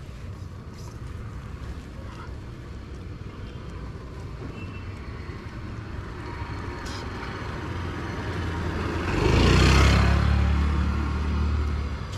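A motor vehicle passing on the road, its engine and tyre noise building to its loudest about nine to ten seconds in, then fading.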